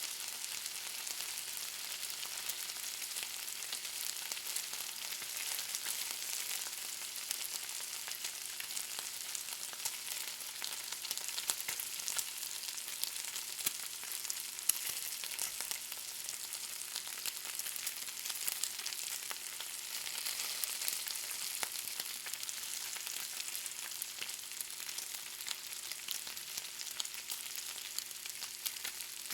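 Bacon frying: a steady sizzling hiss full of small crackles and pops.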